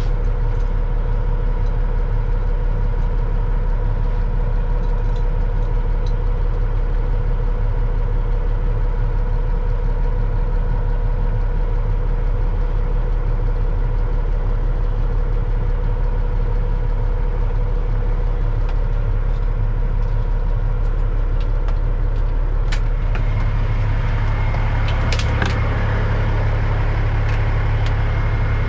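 A Peterbilt 379's Caterpillar diesel engine runs steadily, a loud low drone heard from inside the cab. A few sharp clicks come near the end as the drone's tone shifts.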